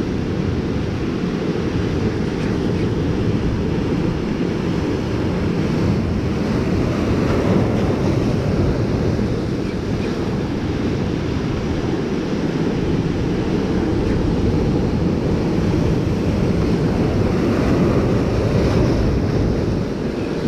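Ocean surf breaking and washing over jetty rocks, with wind buffeting the microphone; a steady, dense noise that is heaviest in the low end.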